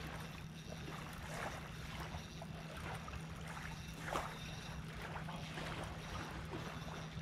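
Small waves lapping and splashing at the water's edge in soft irregular swells, the strongest about four seconds in, over a steady low hum.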